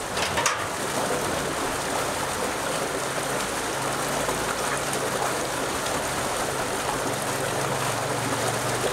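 Steady rushing of flowing water, a stream running close by. A single sharp click about half a second in.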